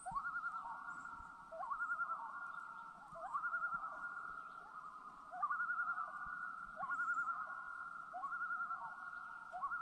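Common loons calling across the lake in a tremolo chorus: each call a rising note that breaks into a wavering, laughing trill, repeated about every second and a half with calls overlapping.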